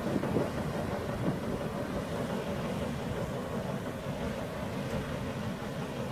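Steady low rush of churning water thrown up by the paddle steamer Waverley's paddle wheels as she moves off.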